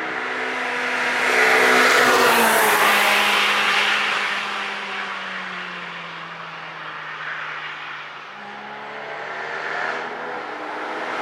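A car passing at speed with its engine under power, loudest about two seconds in, its engine note then falling in pitch as it moves away; another car approaches near the end.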